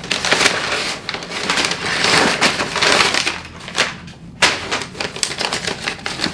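Crumpled brown packing paper crinkling and rustling as a hand rummages through it inside a cardboard shipping box. There is a short pause about two-thirds of the way in.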